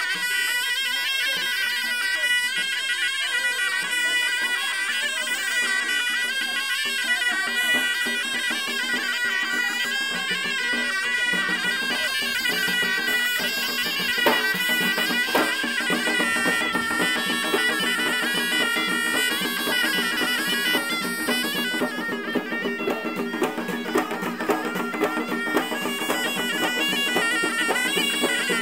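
Folk music: a reed wind instrument plays a melody over frame drums beaten in rhythm. The drumbeats come through more clearly in the last few seconds.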